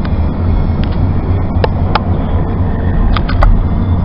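A moving car's steady low road and engine rumble, with several short sharp clicks scattered through it.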